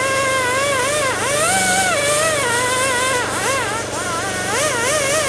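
A small high-speed power tool motor whining with a wavering pitch that keeps dipping and recovering as it is loaded and eased off, typical of a tool cutting into rubber tire lugs.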